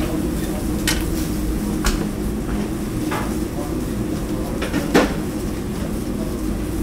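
Long metal kebab skewers clinking against steel as tomato halves are threaded onto them: a few scattered clinks, the sharpest about five seconds in, over a steady low kitchen hum.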